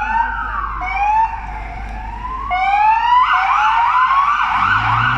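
Police car siren wailing in slow rising sweeps, then switching about three seconds in to a fast yelp of roughly four to five cycles a second as the car pulls away with lights on. A vehicle engine rises in pitch near the end.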